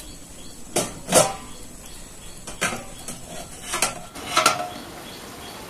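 Steel tongs clinking against steel utensils and a stainless steel plate used as a lid on a cooking pan, about five separate clanks, some ringing briefly, as the lid is gripped and lifted off.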